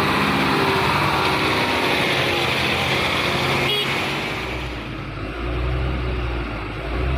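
Diesel truck engine running under load as a truck drives past, with a steady engine note; from about four and a half seconds in the higher sound fades and a deep low rumble takes over.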